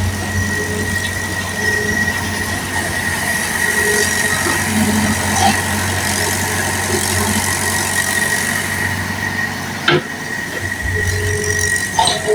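Mini excavator running steadily: a low engine hum with a thin high whine over it, and a short knock about ten seconds in.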